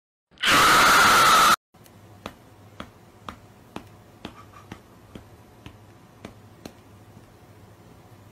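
A loud, harsh noise blast lasting about a second, cut off abruptly. Then a run of light, sharp slap sounds, about two a second and about ten in all, timed to a cat swatting at another cat.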